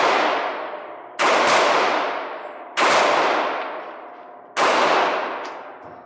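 Three gunshots fired at a steady pace, about one and a half seconds apart, each ringing out in a long echo off the concrete walls of an indoor shooting range.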